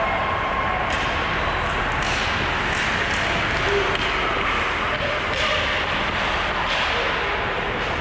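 Ice hockey play at rink level: sticks striking the puck and skates scraping the ice, heard as about six sharp clacks and scrapes over a steady hiss of arena noise.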